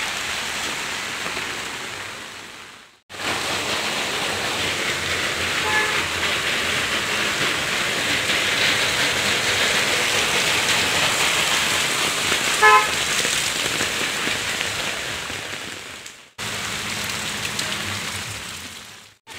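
Heavy monsoon rain pouring on a waterlogged street, a steady hiss. Two short vehicle horn toots come through it, a faint one about a third of the way in and a louder one about two-thirds through. The sound drops out briefly twice.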